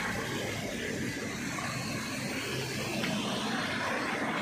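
Steady rush of a rocky mountain stream, water tumbling over boulders and small cascades.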